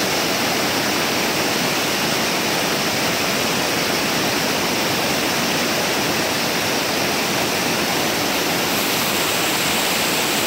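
Mountain waterfall: a cascade pouring over boulders and splashing into the pool below, a steady, loud rush of water.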